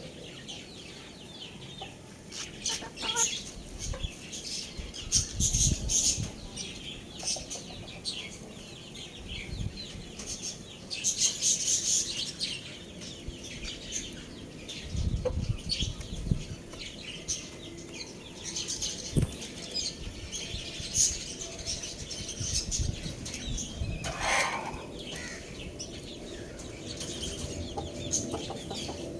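Young roosters clucking and flapping their wings, amid a run of short rustling and scratching noises, with one short squawk near the end.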